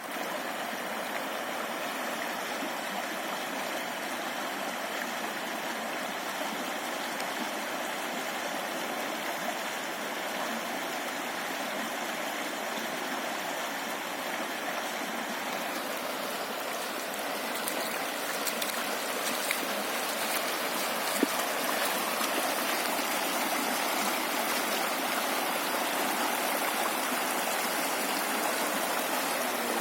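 Floodwater rushing past: a steady, even wash of flowing water that grows louder and hissier a little over halfway through.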